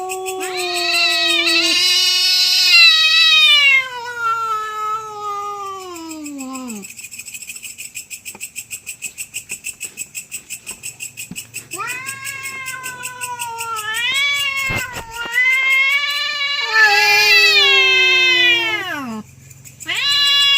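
Cats yowling at each other in a territorial standoff before a fight: long, drawn-out caterwauls that waver and slide in pitch. One stretch lasts through the first seven seconds and another runs from about twelve to nineteen seconds, with a new wail starting near the end. Between them a faint rapid pulsing continues in the background.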